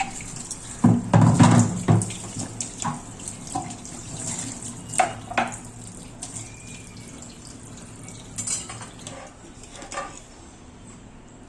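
Kitchen sounds: running or splashing water with pots, pans and utensils clattering, loudest for about a second near the start, then scattered clinks and knocks.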